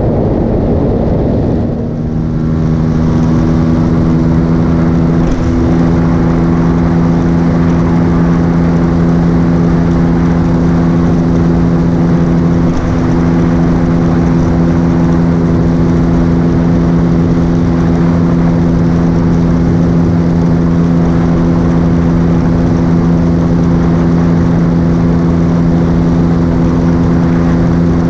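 Motorcycle engine running at a steady cruising speed, its even engine note holding one pitch, under constant wind rush on the bike-mounted microphone. For about the first two seconds a heavier blast of wind noise covers the engine, then the steady engine note comes through.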